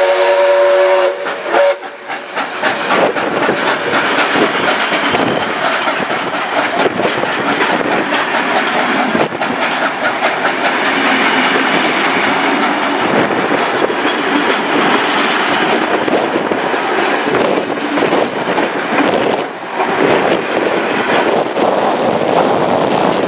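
Steam whistle of NSW 59 class locomotive 5917, cutting off about two seconds in, then a steam train's carriages rolling past close by, wheels clicking over the rail joints in a steady rushing sound.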